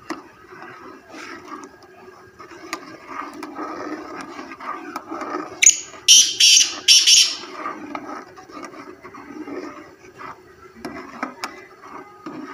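A ladle scraping and clicking against a cooking pot as the pulao is stirred to keep it from sticking and burning. A little past the middle a caged black francolin calls: four loud, harsh notes in quick succession.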